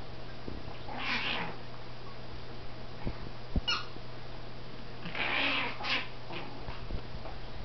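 Two small terrier dogs, a Yorkshire terrier and a Jack Russell puppy, play-fighting, with two short bursts of play growling and a few light knocks between them.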